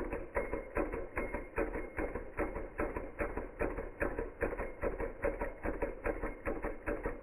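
Small Hog Motor Stirling hot-air engine running, its piston, beam linkage and flywheel making a steady clicking knock about two to three times a second.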